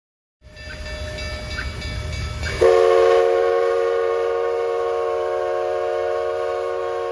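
Steam locomotive's chime whistle blowing one long, loud blast of several notes sounding together, starting about two and a half seconds in, over a low rumble.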